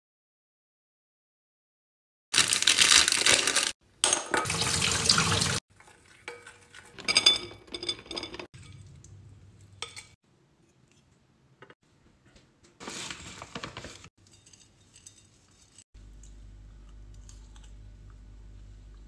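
Kitchen food-prep sounds: two loud rushing bursts of about a second and a half each, then a metal spoon clinking and scraping in a glass bowl of thick chocolate mixture, another short rushing burst, and a faint low hum near the end.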